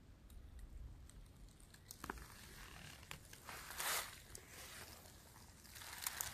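Footsteps crunching through dry leaf litter, faint at first with a few small clicks, then a louder rustling step about two-thirds of the way in and more steps building near the end.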